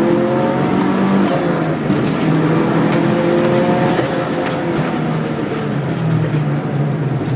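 Subaru WRX's turbocharged flat-four engine running hard on a race track, its pitch holding and then shifting a few times with gear or throttle changes.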